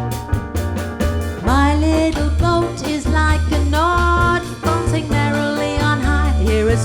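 Live jazz band playing a bossa nova instrumental passage, with bass and rhythmic chord accompaniment. A gliding lead melody enters about a second and a half in.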